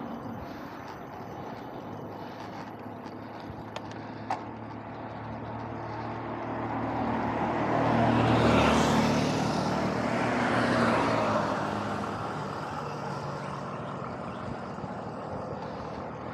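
A motor vehicle's engine swells up and fades away in the middle, over a steady rushing ride noise.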